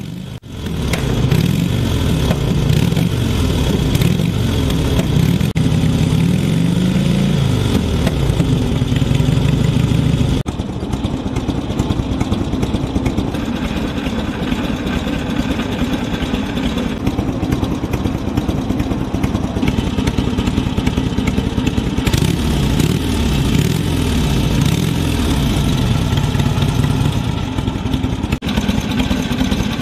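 1948 Indian Chief's V-twin motorcycle engine running and being revved, its pitch rising and falling repeatedly, with a few abrupt jumps in the sound where clips are cut together.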